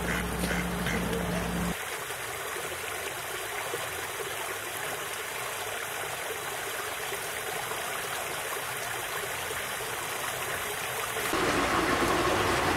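Steady, even rush of a small garden stream's running water, getting louder and fuller near the end. A low steady hum is under it for the first couple of seconds and cuts off suddenly.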